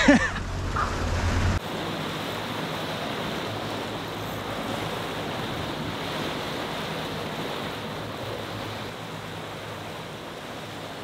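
Rushing, hissing water of a boat's wake churned up by an outboard motor, with wind on the microphone. A low engine hum and a brief shout at the start cut off abruptly after about a second and a half, leaving an even rush of water and wind.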